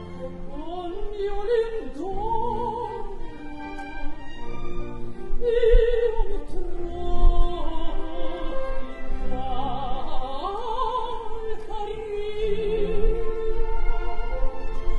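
Operatic singing with orchestral accompaniment: classical voices holding long notes with wide vibrato over the orchestra.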